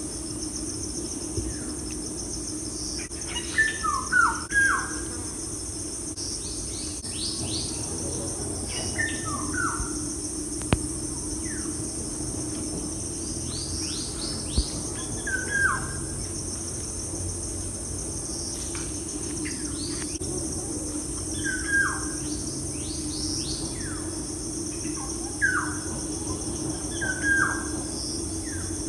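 Bird chirps, short falling calls in small groups every five or six seconds, over a steady high insect drone like crickets and a low steady hum.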